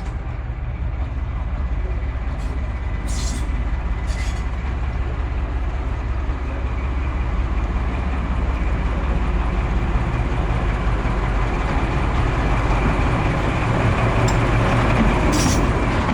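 Class 14 diesel-hydraulic locomotive running under steady load with a deep engine hum that builds slightly as the train gets under way. Short hisses cut in three times, about 3 and 4 seconds in and near the end.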